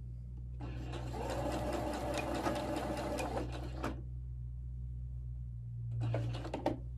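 Pfaff sewing machine stitching a seam at a steady speed for about three seconds, then stopping. Near the end it runs again briefly as it backstitches at the end of the seam. A steady low hum lies under it throughout.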